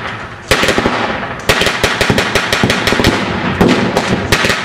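Gunfire from reenactors' blank-loaded rifles and automatic weapons: many sharp shots in quick succession, some in rapid bursts. After a brief lull the shooting resumes about half a second in and keeps going.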